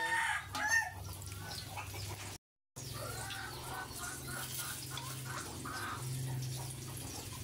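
Chickens clucking in repeated short calls, with a brief dropout about two and a half seconds in.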